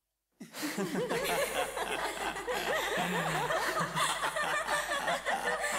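A crowd of people laughing and snickering together, many voices overlapping, starting about half a second in after a brief silence.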